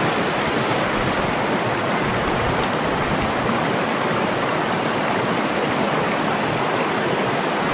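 Creek water rushing steadily, a constant even wash of flowing water.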